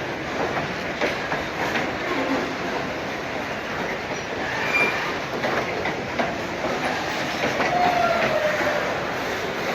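Train rolling past, its wheels clattering over rail joints, with brief squeals of steel wheels on the rail: a short high squeal about five seconds in and a longer, falling one near the end.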